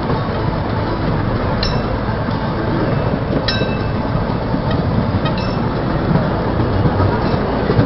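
A train running along the track, with a steady rumble and rattle. Brief high-pitched squeaks come three times, about two seconds apart.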